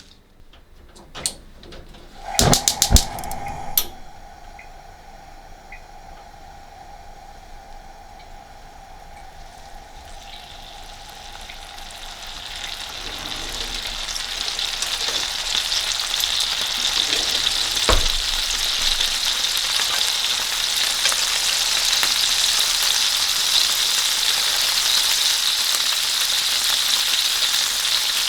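Food frying in a hot pan: a sizzle that builds up from about ten seconds in and then holds steady. A few sharp clicks and knocks come near the start, and a single knock comes partway through.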